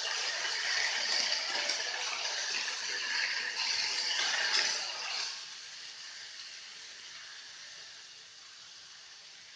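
Boiled chickpeas being stirred in a hot pan of frying masala, sizzling with a scraping rattle. About five seconds in the stirring stops, and a quieter, steady sizzle goes on.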